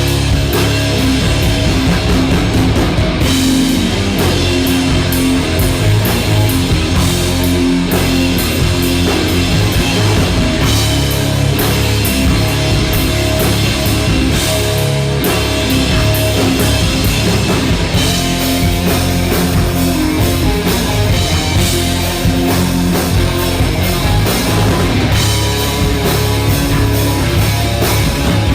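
Background rock music with electric guitar and a drum kit, loud and steady.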